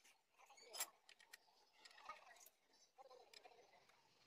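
Near silence with a few faint, sharp metallic clicks of hand tools against the clutch and flywheel assembly; the loudest comes just under a second in.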